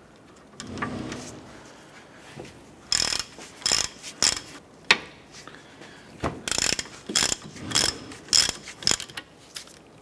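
Hand socket ratchet clicking in short runs as it is swung back and forth, loosening the caliper bracket bolts. The clicking starts about three seconds in, with a short pause in the middle.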